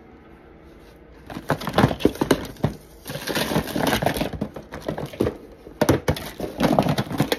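Close, loud handling noise: rustling with many clicks and clatters of small objects being rummaged through, starting about a second in.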